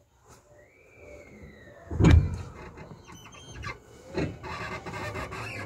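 Commuter electric train at a station: a brief gliding whine, then the doors shutting with a loud thump about two seconds in and a second knock about two seconds later. Near the end a rising whine begins as the train starts to pull away.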